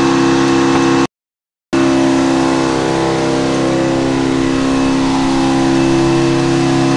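Frick double-zero circle sawmill running at a steady speed, its engine giving a constant drone. The sound cuts out completely for about half a second a second in, then carries on unchanged.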